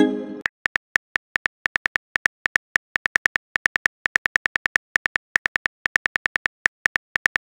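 Texting-app sound effects: a short chime as a message bubble pops in, then a rapid run of identical short high beeps, about five a second, one per keystroke as the next message is typed.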